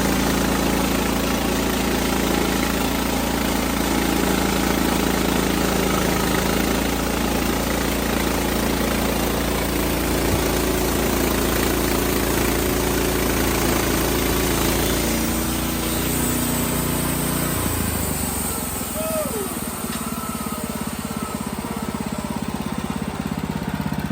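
Wood-Mizer LX55 portable bandsaw sawmill's engine running steadily. Its note changes, and about three-quarters of the way in the low engine drone drops away, leaving a slightly quieter, rougher sound.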